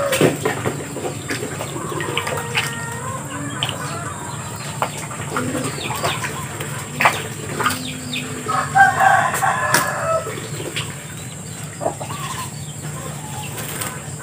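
Poultry calling, with the loudest burst of calls about nine seconds in, over small splashes and drips from Muscovy ducks bathing in a water basin.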